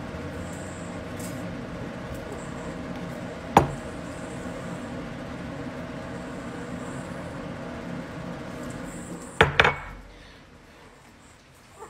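A steady background hum with faint steady tones runs until it stops about nine and a half seconds in. A sharp click comes about three and a half seconds in. Two quick knocks come just before the hum stops: a small glass bowl set down on a wooden table.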